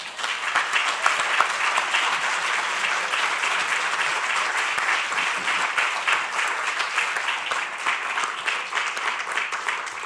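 Audience applauding steadily, tapering off near the end.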